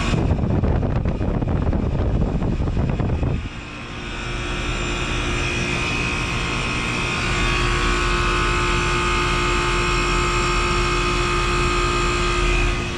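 1995 Trane XE1000 Weathertron two-ton heat pump running, its Climatuff reciprocating compressor very loud along with the outdoor fan. A heavy rushing noise fills the first three seconds or so, then the unit settles to a steady hum with several held higher tones.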